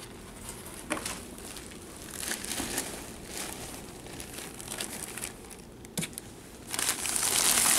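Plastic packing material in a cardboard box crinkling and rustling in irregular bursts as a kitten moves through it, growing louder and denser near the end.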